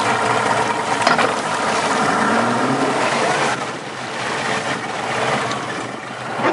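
Speedboat engine running as the boat gets under way, with wind and rushing water.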